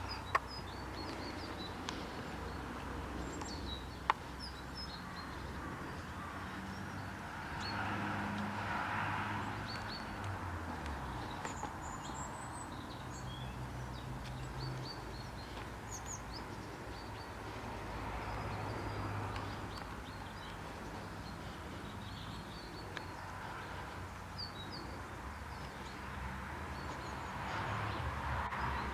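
Outdoor background of scattered small bird chirps over a steady low hum, with a wash of noise that swells and fades three times. A couple of sharp clicks come in the first few seconds.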